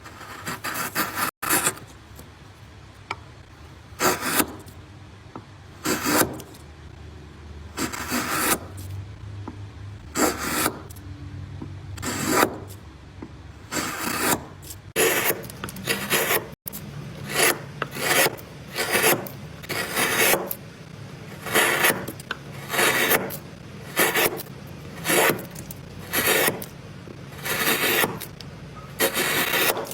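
Hand tool scraping across wood in repeated strokes, at first about one every two seconds, then quicker, about one a second, through the second half.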